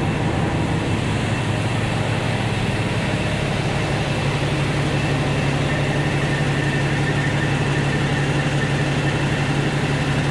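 Heavy loaded water truck's diesel engine idling steadily.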